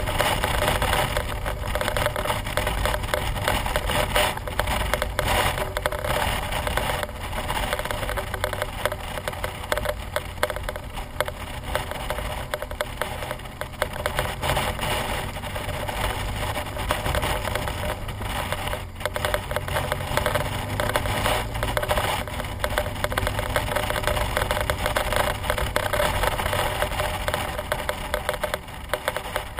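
Wind buffeting and crackling on the microphone of a camera on a moving BMW R1200GS motorcycle, with the bike's boxer-twin engine and road noise as a low rumble underneath.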